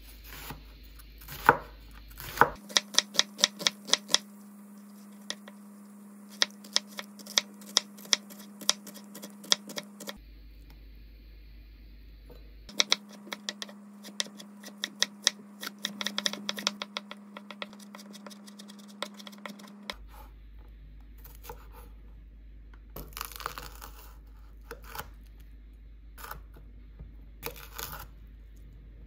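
Chef's knife slicing an onion on a wooden cutting board, the blade knocking on the wood in quick runs of about four or five strokes a second. Near the end come slower, sparser cuts through a green chili pepper.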